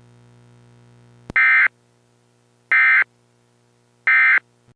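Emergency Alert System end-of-message data tones: three short, loud, buzzy bursts of digital data about a second and a half apart, signalling the end of the alert. A low steady hum comes before them, with a click just before the first burst.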